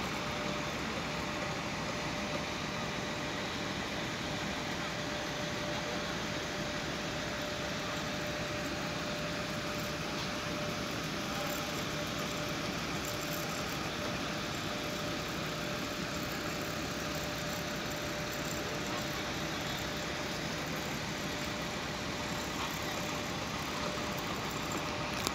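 Steady machinery noise with a constant hum, unchanging throughout.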